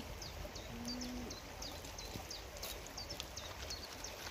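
A small bird calling over and over: short, high chirps that fall in pitch, about three a second, with a brief low hum about a second in.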